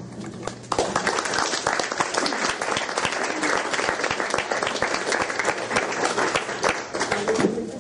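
Small audience applauding, starting just under a second in and tailing off near the end as voices return.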